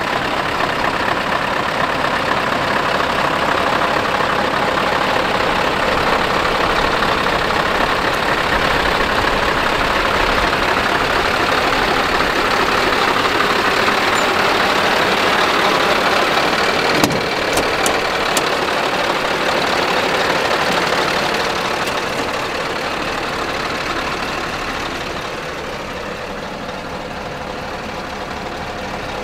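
Scania R560's V8 diesel engine idling steadily, with a few short clicks about halfway through. Near the end it is quieter and muffled, as heard from inside the cab.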